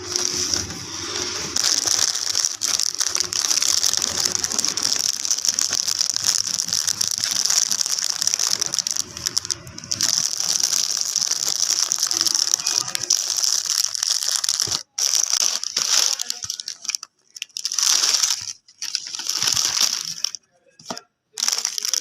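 Plastic snack packaging crinkling and rustling as it is handled and opened. The crinkling is continuous at first, then comes in separate bursts with short pauses over the last several seconds.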